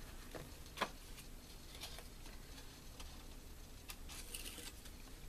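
Paper crafting handled by hand: faint rustling of paper and double-sided tear-and-tape, with a few light ticks and one sharper click about a second in.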